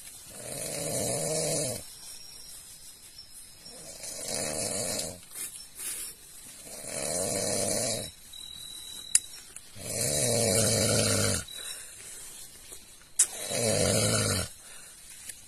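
Very loud open-mouth snoring from a sleeping man: five snores about three seconds apart, each lasting a second or more, with quieter breaths between. There are two brief sharp clicks, the second at the start of the last snore.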